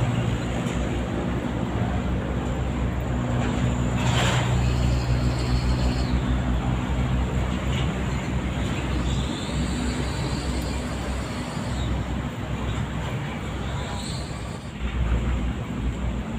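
Road traffic with a steady engine hum, and a vehicle whooshing past about four seconds in.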